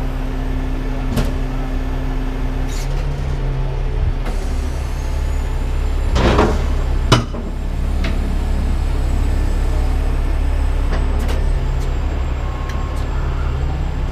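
Heavy-duty diesel truck engine running steadily. About six seconds in there is a short burst of air hiss, followed by a sharp knock.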